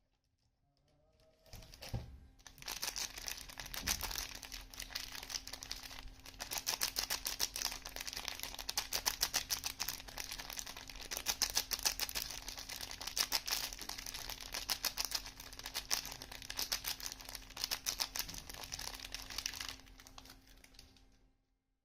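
Soap packaging being unwrapped by hand: a long run of rapid, crisp crinkling and rustling that starts about two seconds in and fades out near the end.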